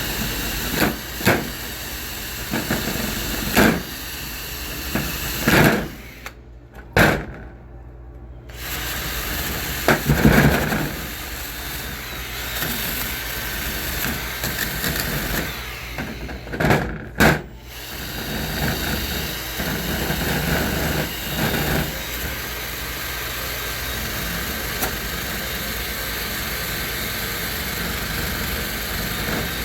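Power drill spinning a wire brush against the rusty steel of a bench vise, scrubbing off rust, with a couple of short pauses.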